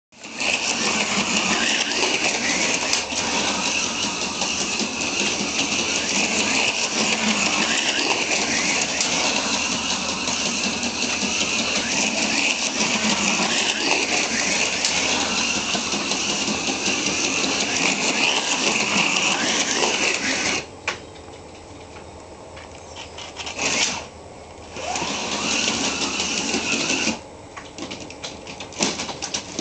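Electric slot cars running on a plastic slot-car track: a steady motor whir with a high whine that rises and falls with speed. It cuts off suddenly about twenty seconds in, starts again in two short spurts, and then gives way to light clicks and rattles near the end.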